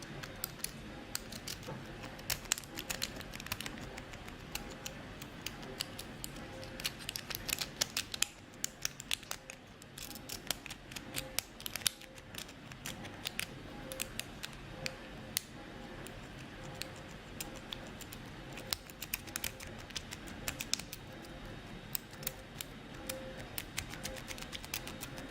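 A City Rake lock pick being worked in and out of a Hermex CH-50 five-pin padlock, the rake scraping and clicking over the pins in runs of rapid light metallic clicks with short pauses between them.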